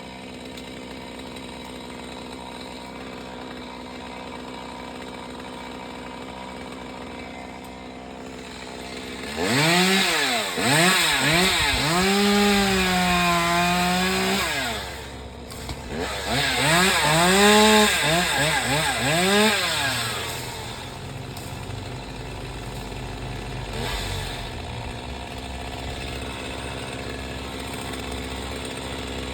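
Two-stroke chainsaw idling, then run at full throttle twice, about five seconds and then about four seconds, its pitch dipping and recovering as it cuts into wood. It drops back to idle for the rest.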